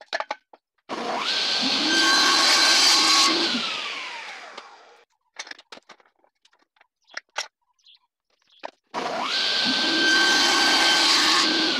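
Table saw started twice, each time spinning up, running about two and a half seconds, then switched off and winding down with a falling whine; the second run cuts a small piece of purpleheart wood fed with a push stick. In between, short knocks and clicks of wood and the fence being set.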